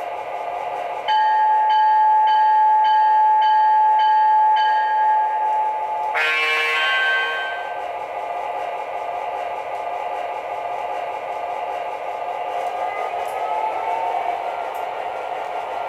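Digital Proto-Sound 2.0 sound of an MTH O-gauge F-3 diesel model. First comes the locomotive bell, ringing with about seven evenly spaced strikes. Then a short air-horn blast, and then the diesel engine sound rumbling steadily and revving up near the end as the model starts to move.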